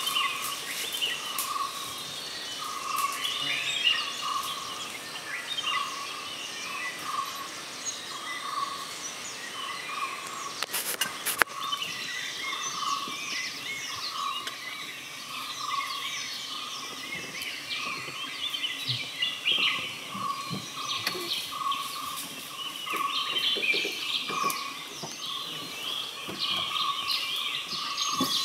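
Forest bird chorus: many birds chirping and twittering at once, under an evenly repeated call on one steady note. A single sharp click about eleven seconds in.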